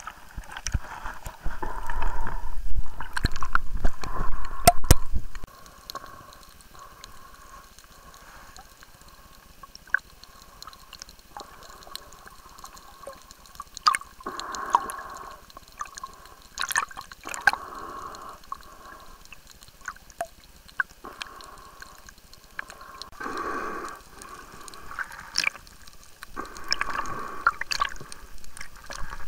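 Water splashing, dripping and gurgling in irregular bursts close to the microphone, with a loud low rumble about one to five seconds in.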